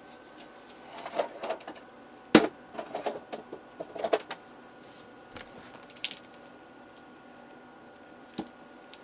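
Small plastic and metal printer parts clattering as they are handled and set down on a table: one sharp knock about two seconds in, a run of clicks and rattles after it, then a couple of single taps near the end.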